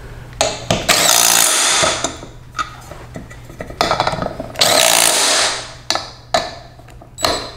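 Handheld power driver run in several short trigger bursts, each about a second long and winding down at its end.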